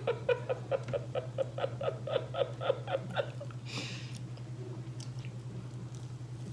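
A person chewing a mouthful of fried chicken with the mouth close to the microphone, about four wet chews a second that stop a little past three seconds in, followed by a brief hiss. A steady low hum runs underneath.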